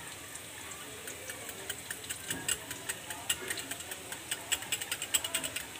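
Steel spoon clicking rapidly and irregularly against a glass bowl as curd is whisked, starting about a second in and getting louder towards the end.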